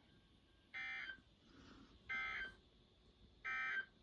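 Three short, identical bursts of EAS/SAME end-of-message data tones from NOAA Weather Radio, about a second and a half apart: the burst signal that closes the Required Weekly Test broadcast.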